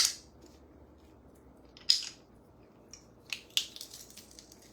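Garlic press crushing garlic cloves: a few short, sharp clicks and squelches, the loudest about two seconds in and two smaller ones a little after three seconds.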